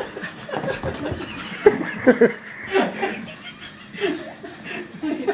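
A person laughing and chuckling in short bursts.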